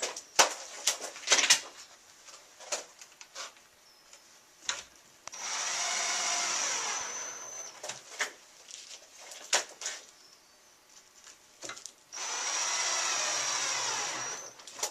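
Electric drill driving screws into the drawer of a wood cabinet, two runs of about two seconds each with a steady high whine, and sharp knocks and clicks of the parts being handled in between.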